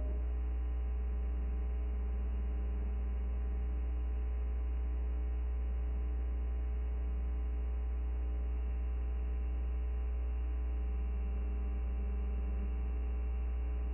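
Steady electrical mains hum with a faint buzz above it, unchanging throughout, on the otherwise empty soundtrack of an analogue videotape.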